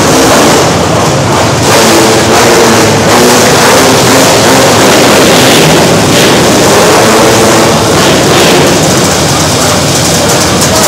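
Small engines of several winged sprint karts running together at shifting speeds while the karts are push-started.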